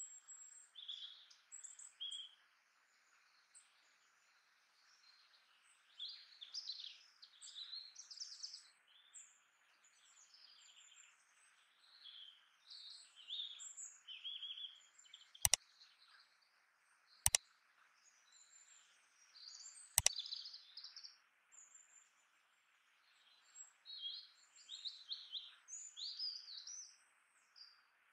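Small birds chirping and twittering over a faint steady hiss, with three sharp clicks a couple of seconds apart a little past halfway.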